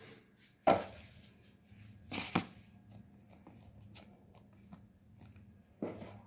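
A few kitchen handling knocks: a sharp one about a second in, two lighter ones a little past two seconds, and another near the end, as a ball of kneaded dough is put into a plastic casserole bowl and pressed down by hand.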